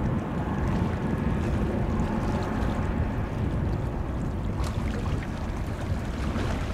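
Jet engines of a departing easyJet Airbus A320-family airliner climbing away after takeoff: a steady low rumble that slowly fades.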